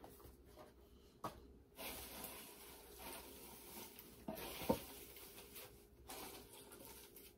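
Faint rustling and handling of packaging and box contents on a table, with a light knock about a second in.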